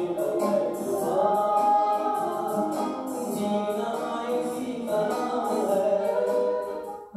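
A man singing a song into a microphone over a band accompaniment with a steady beat, heard through a television's speakers. The music cuts off just before the end.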